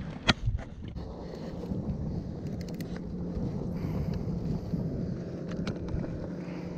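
Low, steady rumble of wind on the microphone, with a sharp knock about a third of a second in and a few light clicks later from fish and gear being handled in the kayak.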